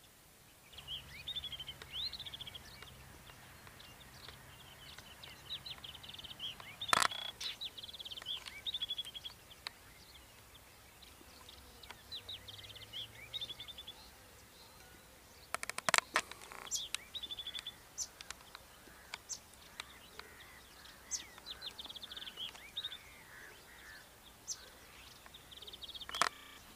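Small birds chirping and twittering in quick, high trills, several at once, with a few sharp clicks cutting through now and then.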